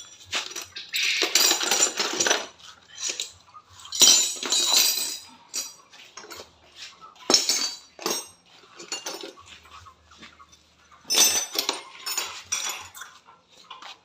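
Metal tools and steering parts clinking and clattering in irregular bursts with sharp knocks between them, during work on a worn-out rack-and-pinion steering box.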